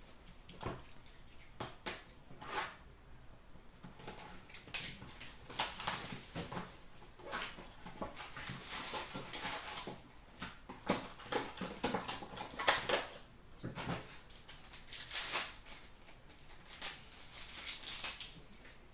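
Upper Deck Artifacts hockey card packs being torn open by hand, the wrappers crinkling and the cards sliding and flicking against each other in irregular bursts.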